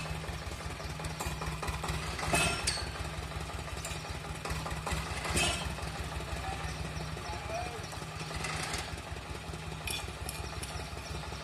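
Small engine running steadily at a low drone, with a few short sharp noises over it about two, five and nine seconds in.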